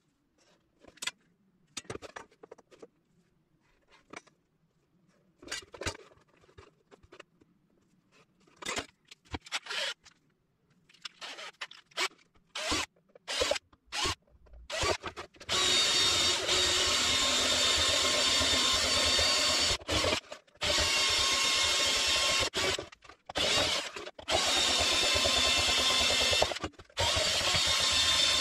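Scattered clicks and knocks of handling for about fifteen seconds, then an electric motor running loud and steady with a whine. It stops briefly about three times and starts again.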